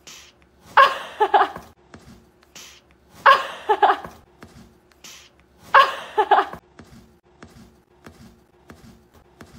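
A short sound clip repeating on a loop about every two and a half seconds, three times: each time a brief hiss, then a louder pitched call in a few quick pieces.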